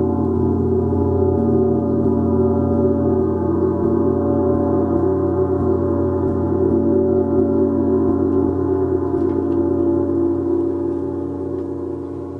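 Gong ringing in a long sustained drone, a dense wash of overtones held steady and easing down slightly near the end.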